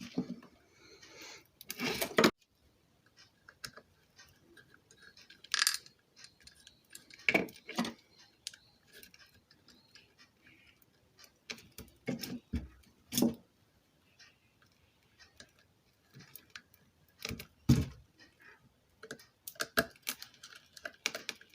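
Irregular metallic clicks, clinks and knocks of tools and parts being handled while a ceiling fan is taken apart, with a few sharper knocks among them.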